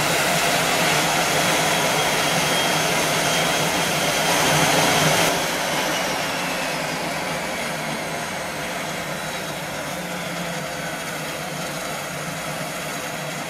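Dornier 328's twin turboprop engines running as the aircraft moves past: a steady propeller drone with a high turbine whine. It is loudest about five seconds in, drops abruptly just after, and then fades slowly as the aircraft moves away.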